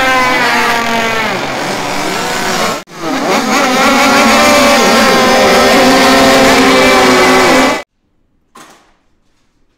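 Several two-stroke racing motorcycle engines revving hard, their pitches rising and falling over one another. The sound breaks off for an instant about three seconds in, runs on, then cuts off suddenly near the end, leaving near silence with a single soft knock.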